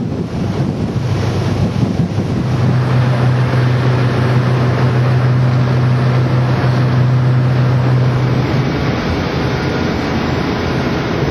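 Wind buffeting the microphone on the deck of a car ferry under way, over steady water and engine noise. A steady low hum from the ship comes in about two seconds in and stops near nine seconds.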